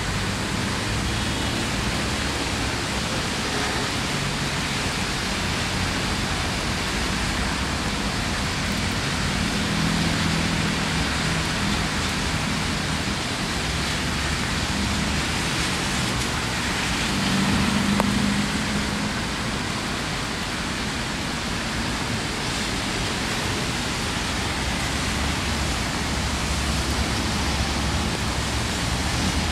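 Steady hiss of rain falling on wet paving and plants, with a low hum of city traffic underneath that swells briefly about two-thirds of the way in.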